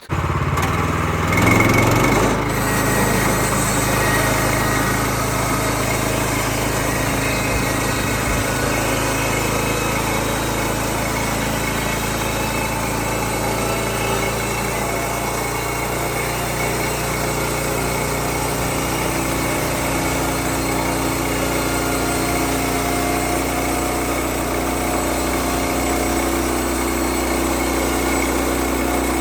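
Gasoline engine of a Bushlander HM122 bandsaw mill coming to life and revving up over the first two seconds, then running at a steady speed.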